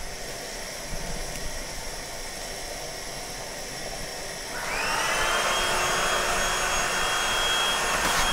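A small electric motor, like a blower or vacuum, starts about four and a half seconds in with a rising whine, then runs steadily with a high whine over a rush of air.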